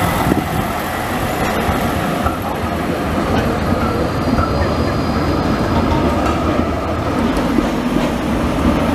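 Basel tram passing close by: a steady rumble of steel wheels on street rails, with a few clicks.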